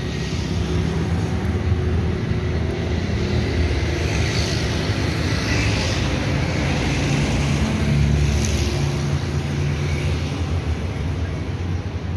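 Steady drone of running engines and street traffic, a low hum with no break or sudden change.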